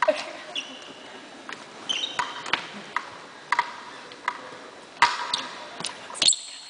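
Scattered short squeaks and light knocks on a hardwood gym floor, from sneakers and a rag mop being pushed across it.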